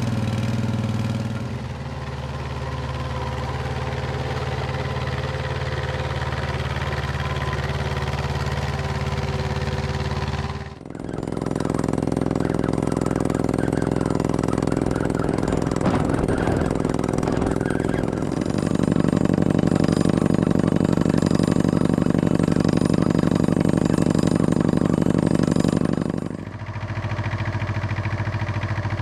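Engine of a Dando Terrier tracked drilling rig running steadily while the rig works. Its note changes abruptly twice, and it is louder for a stretch after the middle.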